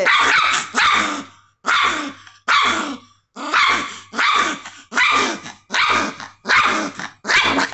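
A small black-and-tan dog barking and growling in short, snappy barks, about a dozen in a row at a steady pace, each falling in pitch: an angry, defensive display with bared teeth, which the owner puts down to her having just been given a bath.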